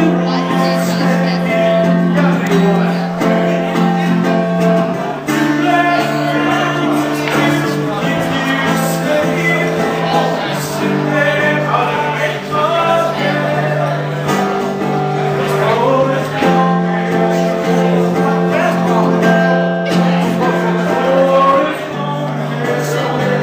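Male singer-songwriter singing while playing an acoustic guitar live, the chords changing every few seconds.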